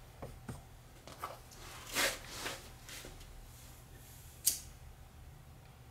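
Hands handling electrical wires and connectors at a terminal strip: a few short rustles and light clicks, with one sharp click about four and a half seconds in, over a faint low hum. The warning buzzer is silent.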